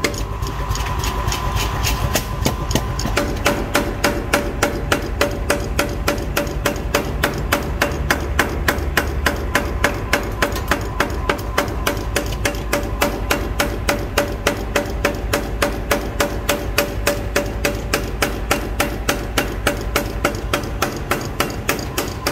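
Mechanical power hammer forging a red-hot steel cleaver blank, its ram striking in a steady run of about three blows a second, over a constant machine hum.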